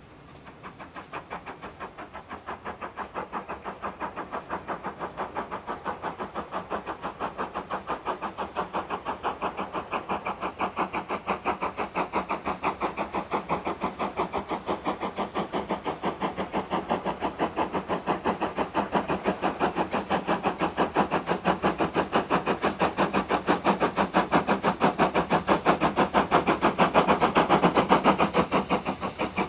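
GWR Modified Hall 4-6-0 steam locomotive 6989 working a train, its two-cylinder exhaust beats coming in a fast, even rhythm. The beats grow steadily louder as it approaches and are loudest near the end.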